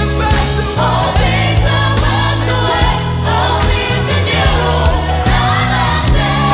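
Gospel choir singing in parts over a live band with bass and drums.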